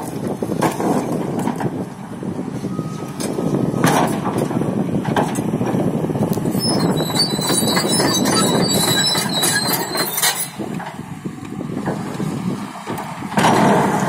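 Hyundai crawler excavator's diesel engine running under load, with several sharp clanks of the steel bucket and broken asphalt in the first few seconds. For about four seconds in the middle there is a high metallic squeal as the steel tracks turn and reposition the machine. Near the end comes a louder scraping crash as the bucket bites into the bitumen road surface.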